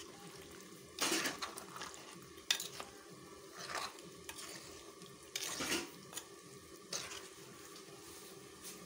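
A spoon stirring a thick clam and potato curry in a pot, scraping against the pot in about five separate strokes roughly a second and a half apart, as the ground coconut masala paste and added water are mixed in.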